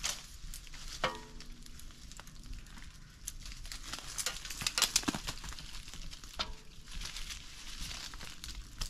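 Pistachio nuts clicking and rustling as they are handled: a dense run of light clicks and crackles, busiest in the middle, with two brief pitched sounds, one about a second in and one about six seconds in.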